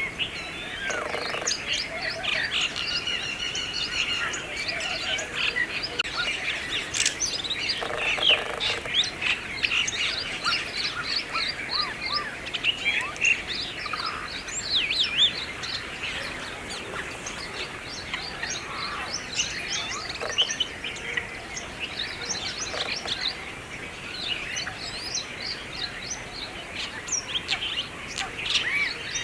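Brahminy starling singing: a long, dense run of quick chirps, whistles and gliding notes, with hardly a pause.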